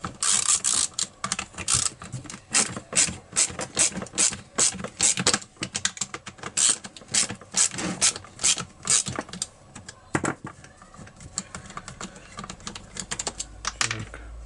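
Socket ratchet wrench clicking in quick runs as it is swung back and forth, undoing the 8 mm nuts on a Stihl MS 180 chainsaw's carburettor mounting. The clicks thin out after about ten seconds.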